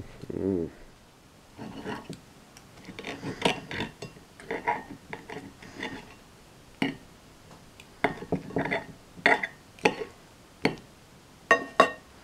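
A fork and knife scraping and clicking against a plate while cutting up a slice of pizza: a string of short scrapes and taps, a couple near the end ringing briefly.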